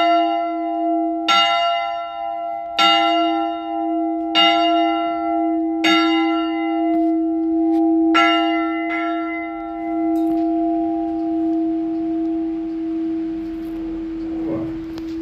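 Small bronze church bell (the sonello, tuned to a flat F4, cast by Rafanelli in 1870) swung by an electric ringing motor, its clapper striking about every second and a half. The last two strokes come close together about eight to nine seconds in, then the bell's note rings on and slowly fades.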